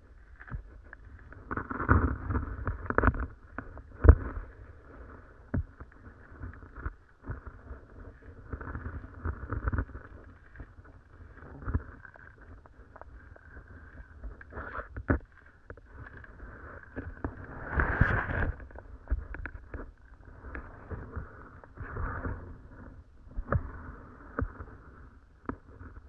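Irregular knocks, clicks and rustles from handling ice-fishing gear on the ice, with a sharp knock about four seconds in and a longer rustle around eighteen seconds.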